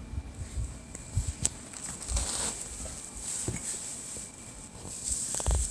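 Handling noise from a hand-held phone: irregular rustling and soft low bumps as it is moved and a finger brushes over it.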